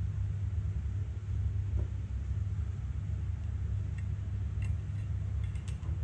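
Steady low rumble of kitchen background noise, with a few faint light clicks between about four and six seconds in.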